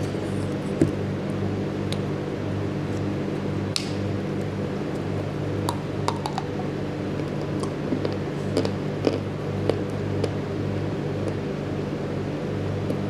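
Pieces of a baked clay pot lid being bitten and chewed: short sharp crunches and cracks now and then, most of them between about five and ten seconds in, over a steady droning hum.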